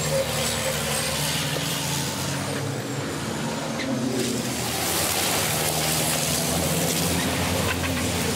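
Diesel engines of two MAN racing trucks running at speed as they pass at close range, a steady loud engine drone.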